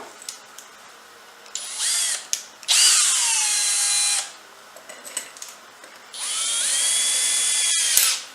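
Power drill driving a mixing rod in a jug of thick silicone and mineral spirits, run in three bursts with its motor whining: a short one about two seconds in, a longer one about three seconds in whose pitch drops then holds, and a two-second run from about six seconds in whose pitch rises then holds.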